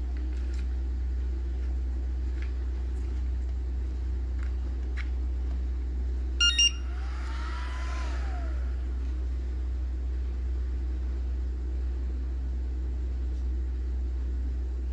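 Two short electronic beeps from a ToolkitRC M6D hobby charger, about halfway through, over a steady low hum.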